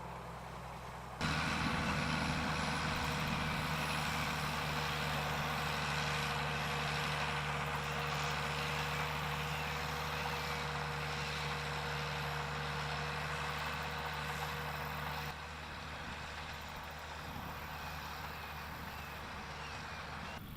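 Farm machinery engine running steadily with a constant hum. It turns abruptly louder about a second in and drops back to a lower level around fifteen seconds in.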